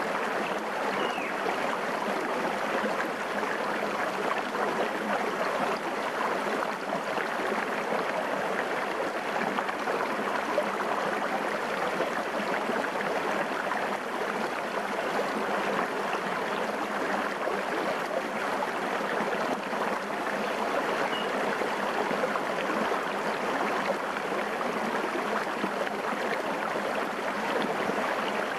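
Shallow, clear forest stream running over rocks close to the microphone: a steady, even rush and babble of water.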